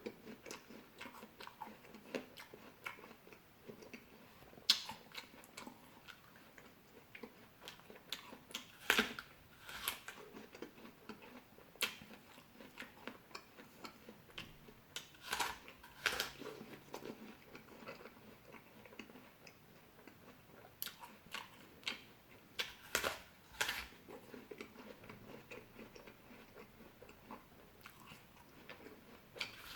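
A person chewing and biting fresh fruit: a steady run of wet, crackly chewing with sharper crunchy bites every few seconds.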